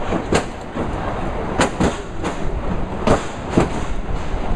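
Open incline railway car running down a very steep track: a steady rattling rumble from the wheels and carriage, broken by irregular sharp clacks and knocks.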